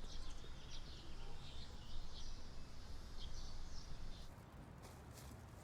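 Small birds chirping over a low steady background rumble, stopping about four seconds in, after which only faint room tone and a few light clicks remain.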